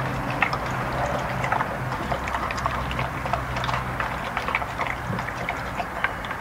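A Border Collie–Rottweiler cross dog eating from a stainless steel bowl: irregular wet chewing and smacking with many small clicks and ticks, several a second.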